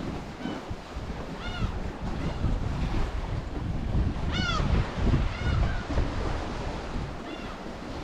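Sea waves washing against the rocky shore at high tide, with wind rumbling on the microphone. A bird gives short, arched calls about six times, the loudest about four and a half seconds in.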